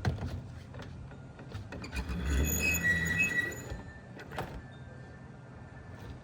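Steel roof basket being handled on the car's roof: a few knocks, then about two seconds in a louder stretch of metal scraping with a high squeal and dull thumps, followed by light clicks.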